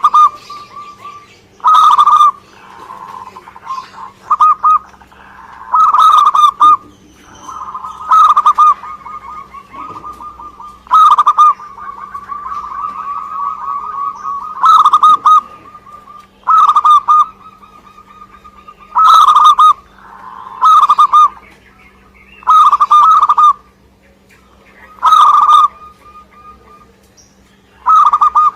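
Zebra dove (perkutut) singing: loud, short, rolling cooing phrases repeated about every two seconds, with softer trilling coos between them. A faint steady hum runs underneath.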